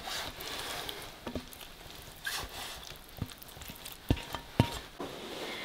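Hot, just-fried shallot and garlic paste sizzling faintly as a spatula scrapes it out of a wok into a bowl, with a few sharp taps of the spatula against the pan, the clearest in the second half.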